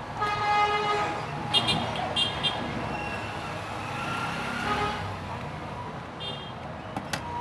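Street traffic noise with a vehicle horn: one longer toot near the start, then two short toots about a second and a half and two seconds in.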